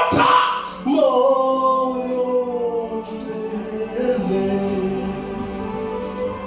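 Slow gospel worship singing: a voice holds long, gliding notes over steady sustained backing music.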